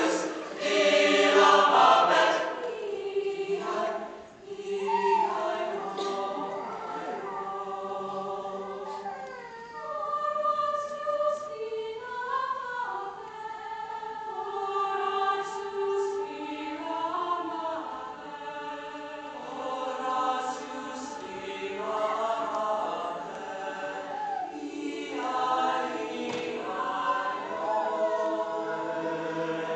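Mixed chamber choir of high-school singers singing in chorus, holding chords that shift every second or so. It is loudest at the start and dips briefly about four seconds in.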